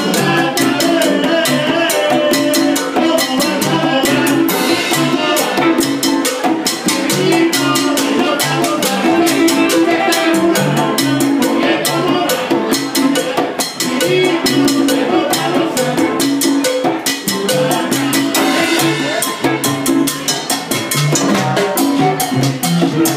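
Live salsa band playing an instrumental stretch, with drums and Latin percussion keeping a steady, driving beat over the bass and horns.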